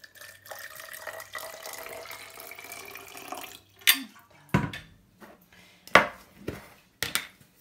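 Hot water pouring from a stainless steel kettle into a plastic baby bottle for about three seconds, with a faint tone that rises slightly as the bottle fills. Then come several sharp knocks and clunks of things set down and handled on the counter.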